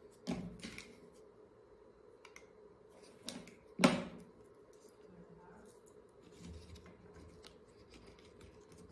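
A few short, sharp clicks from hands handling small craft pieces (paper flowers, clip, plastic packaging), the loudest about four seconds in, over a faint steady hum.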